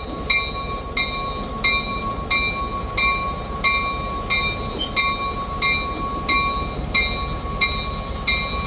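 Diesel locomotive's bell ringing steadily, about one and a half strikes a second, over the low rumble of the locomotive's engine.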